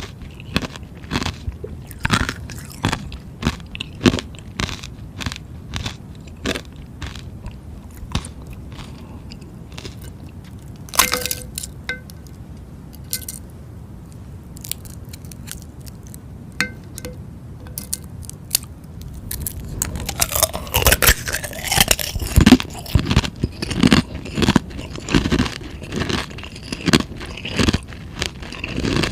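Close-miked biting and chewing of something frozen: sharp, separate crunches. There is a quieter stretch in the middle with a couple of brief ringing clinks, then denser, louder crunching from about twenty seconds in.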